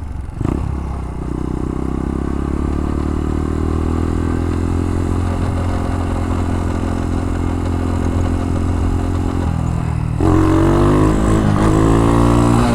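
Four-stroke single-cylinder engine of a Honda Dax-style mini motorcycle running under way, mostly steady with a slowly climbing pitch. A short knock comes just after the start, and about ten seconds in it is revved harder and gets louder, its pitch swinging up and down.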